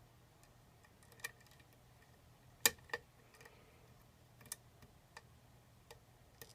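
Lock pick and tension tool working the pins of a challenge lock: a handful of faint, irregular metal clicks and ticks, the loudest about two and a half seconds in.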